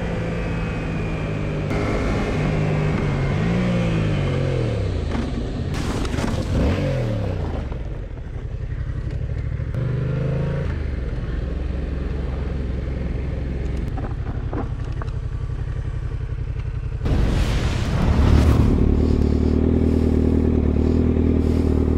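Yamaha XSR700's parallel-twin engine pulling and shifting, its note rising and falling through the gears on the ride. About two-thirds of the way through it cuts to a different sport bike's engine idling, louder and steady.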